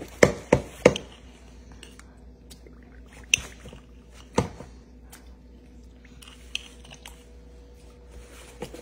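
A metal spoon clinking against a glass jar and a stainless steel mixing bowl as sugar is scooped out and knocked into the bowl: three quick clinks in the first second, then two single clinks about three and four and a half seconds in.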